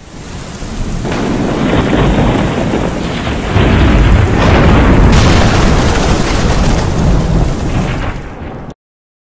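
Thunder rumbling over heavy rain as a produced storm sound effect. It swells in over the first second, grows louder about three and a half seconds in, and cuts off abruptly near the end.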